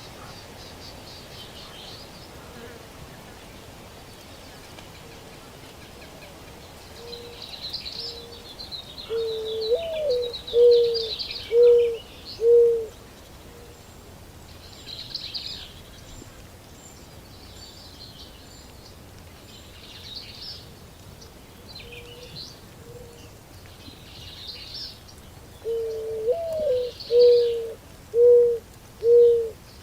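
Morning birdsong: small birds chirping and twittering throughout, and a dove cooing twice, each time a rising-and-falling first coo followed by four short coos.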